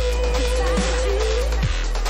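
Electronic background music with a deep sustained bass and a wavering synth melody, with occasional quick falling pitch sweeps.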